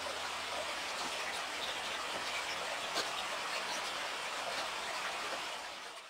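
Creek water running steadily, a continuous rushing hiss that fades out near the end.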